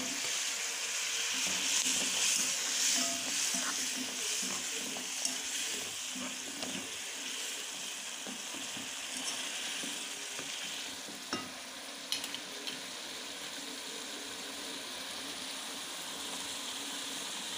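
Tomato-onion masala gravy sizzling in a metal kadhai as fried besan gatte are stirred into it with a spoon; the sizzle is strongest in the first few seconds and then eases. A few sharp clicks of the spoon against the pan come a little past the middle.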